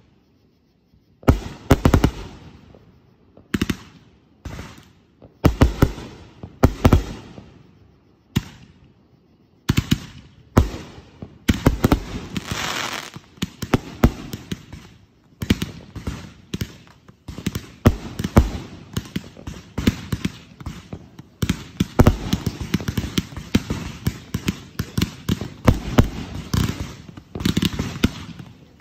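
Fireworks display: aerial shells bursting with sharp bangs, a few well spaced at first. From about ten seconds in they come as a rapid, near-continuous run of bangs and crackling.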